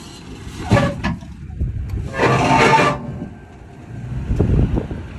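Toyota Tundra pickup clawing up a rock ledge over a plastic traction board: two harsh scraping, grinding bursts of about a second each as the tire and truck scrub over the board and rock, then a lower rumbling with a few knocks as the truck lurches up the ledge.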